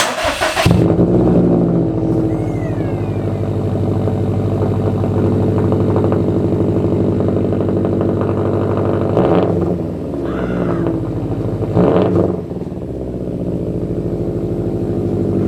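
Subaru STI's turbocharged flat-four engine starting up and settling into a steady idle through a freshly fitted ETS Extreme straight-pipe, non-resonated exhaust, with a few short throttle blips in the second half. The tone is deep.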